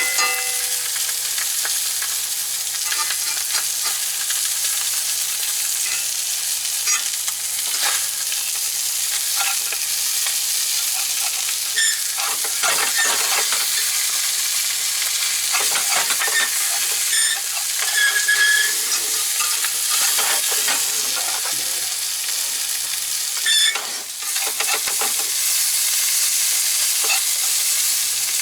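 Striped bass fillet frying in oil in a pan, a steady sizzle, with a few sharp scrapes and clicks of a utensil against the pan as the skin sticks.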